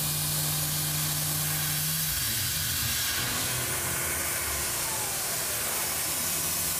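Tormach CNC mill spindle turning at 5,000 RPM, taking a light edge-break chamfer pass, with a steady hiss from the air nozzle blowing on the cut. A low hum drops out about two seconds in.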